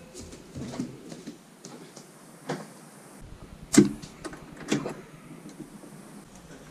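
Front door being unlocked and opened: several sharp metallic clicks and clacks from the deadbolt and lever handle, the loudest a little past halfway.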